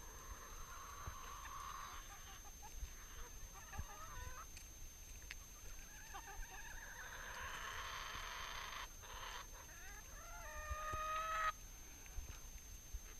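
Flock of domestic hens clucking and calling while they crowd in to be hand-fed. Near the end one bird gives a longer, louder call that cuts off suddenly.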